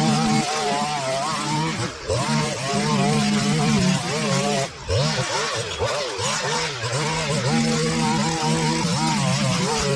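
Petrol line trimmer running at cutting speed along a fence line, its engine note wavering as the throttle is worked, with two brief drops in the engine, about two seconds in and again near the middle.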